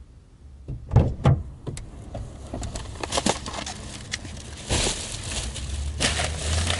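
A car's rear door unlatching and opening with two sharp knocks about a second in, then plastic grocery bags rustling and crinkling as they are set down on the back seat, loudest twice near the end.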